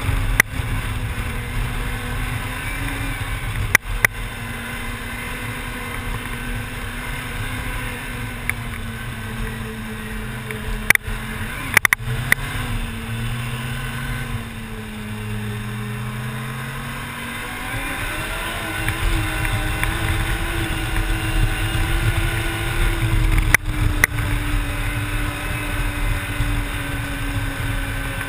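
Snowmobile engine running at cruising speed, heard from the rider's seat. The engine note sags from about 12 to 17 seconds in, then picks back up, with a few sharp knocks along the way.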